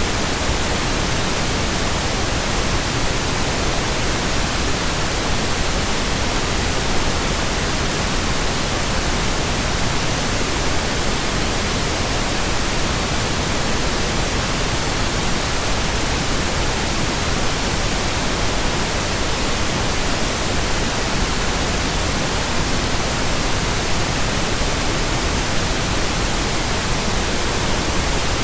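Steady computer-generated pink noise: an even, unbroken hiss across all pitches, with no tones or changes.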